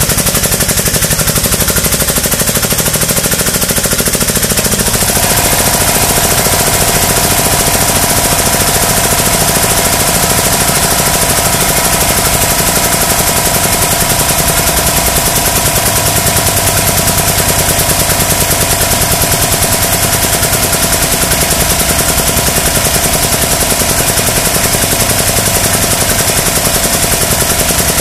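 Harbor Freight 8-ton air-over-hydraulic ram's air-driven pump chattering in a loud, rapid, steady pulse as it extends the ram on the tubing bender. About five seconds in a steady whine joins it, the shop air compressor running.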